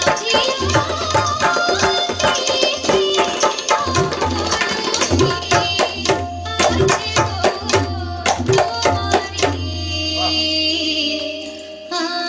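Tabla and a rope-laced barrel drum playing a fast duet, a dense run of strokes over a deep, ringing bass. The run ends about three-quarters of the way through, the last bass stroke ringing and fading away, while a steady drone carries on underneath.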